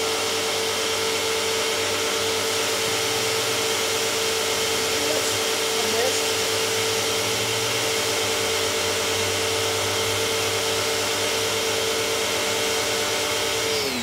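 Sun Joe SPX2688-MAX electric pressure washer running steadily, spraying through an under-car washer attachment, a strong steady motor whine over the hiss of the water. Right at the end the whine falls in pitch and winds down.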